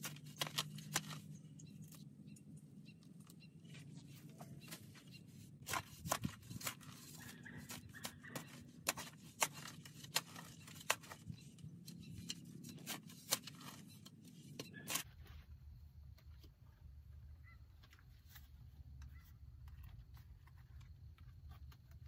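Round-point shovel digging into grassy clay soil: a run of sharp crunching strikes and scrapes as the blade is stepped in and cuts through sod and roots, which stops about fifteen seconds in, leaving fainter handling noises.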